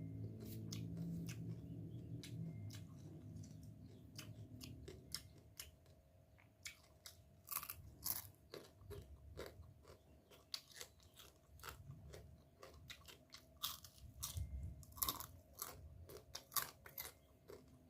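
Close-miked chewing of rice-field crabs, with many sharp, irregular crunches of shell. A low hum sits under the first few seconds.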